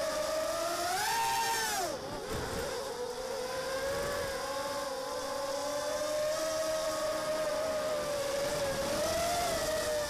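Six 1306 3100kv brushless motors of an Armattan Mini Hex hexacopter whining in flight, heard through its onboard camera. The whine climbs in pitch about a second in, falls away sharply just before two seconds, then settles into a steady whine.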